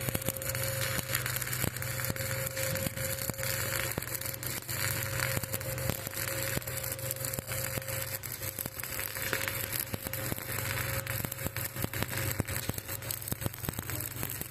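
Electric arc welding: the arc crackles densely and steadily throughout, over a steady low hum.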